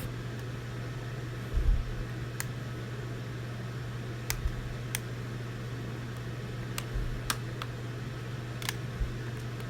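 Plastic pry tool working around the Nexus 5's back case, the case's plastic clips snapping free in about seven sharp, irregular clicks, with a few soft bumps of the phone being handled, over a steady low hum.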